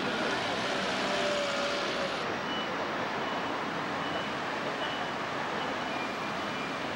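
City street traffic on a wet road: steady engine and tyre noise, with a vehicle passing close in the first two seconds. After that, faint short high beeps repeat less than a second apart.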